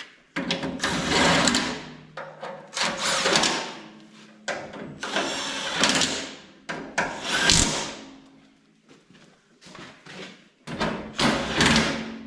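A handheld power driver running in a series of short runs, one to two seconds each with short gaps, driving the bolts that hold the tractor's sheet metal.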